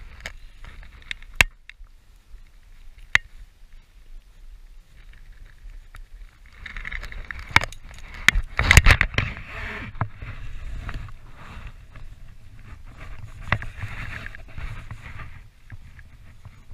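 Handling noise from a body-worn camera: two sharp clicks of fishing tackle being handled, then a long stretch of clothing rustling and thumps against the camera as the angler moves on snow, loudest about halfway through.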